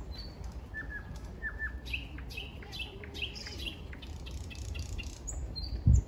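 Thrush nightingale singing: pairs of repeated falling whistled notes, then fast runs of dry clicking notes. A brief low thump comes just before the end.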